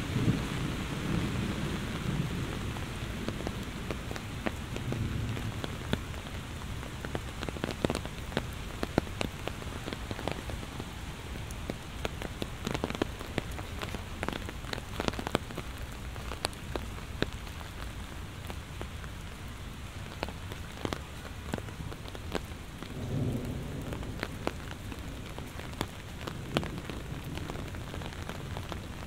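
Heavy rain falling steadily, with many sharp drops ticking close by. Low thunder rumbles fade out in the first seconds, and another low rumble comes about 23 seconds in.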